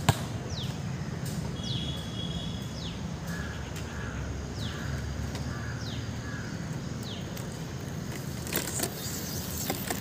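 Outdoor ambience: a steady low rumble with a bird repeating a short falling chirp about once a second, plus a brief trill and a run of about five calls in the first half. A single sharp knock comes right at the start, and a few clicks and rattles come near the end.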